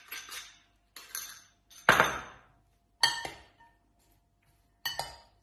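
Metal salad servers clinking against a glass mixing bowl as a cabbage-and-apple slaw is tossed with dressing: about five separate clinks roughly a second apart, the loudest about two seconds in.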